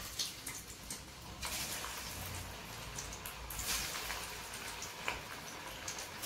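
Masala-coated prawns deep-frying in hot oil in a steel kadai: a steady sizzle with scattered crackles and pops as pieces are dropped in one by one.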